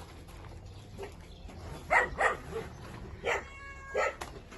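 Dogs barking: a quick pair of barks about two seconds in, then two more single barks near the end.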